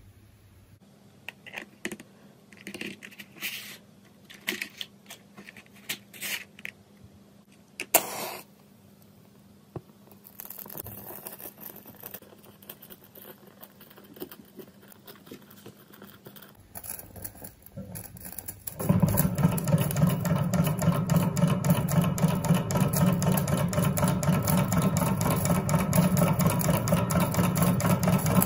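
Metal parts of a model Stirling hot-air engine clicking and tapping as they are set in place. About two-thirds of the way through, the engine starts running with a loud, steady, rapid mechanical clatter from its piston and spinning flywheel.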